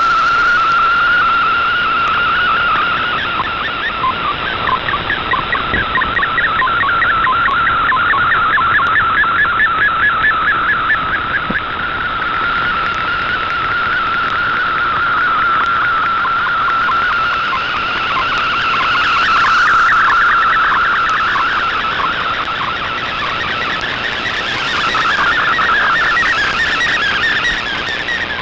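Shortwave digital picture transmission (fldigi MFSK image mode) received off the air: a rapidly wavering whistling data tone over shortwave hiss. Its strength swells and fades slowly with the shortwave fading.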